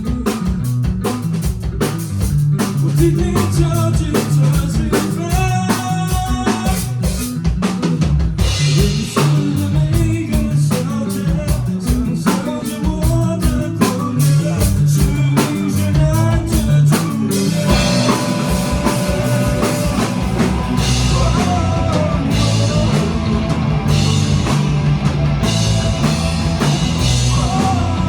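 A rock band playing live, with the drum kit to the fore over bass and guitar. The sound gets fuller about two-thirds of the way through.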